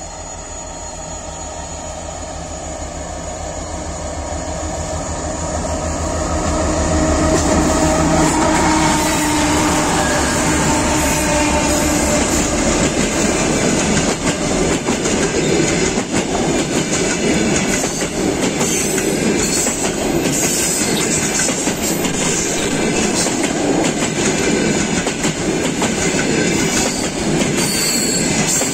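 Diesel-hauled passenger train approaching, the locomotive's engine hum growing louder over the first several seconds. Then the passenger coaches pass close by, their wheels clattering rhythmically over the rail joints.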